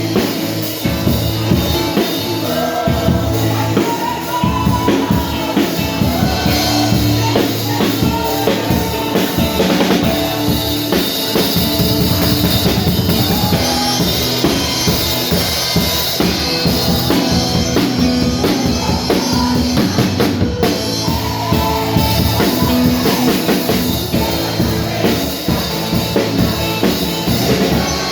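Live rock-style band music driven by a drum kit, with kick and snare keeping a steady beat under melodic lines.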